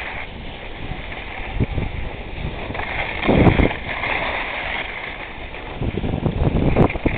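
Wind rushing and buffeting over the microphone of a camera carried by a moving skier, with skis sliding and scraping over packed snow. The rush surges louder about three seconds in and again near the end.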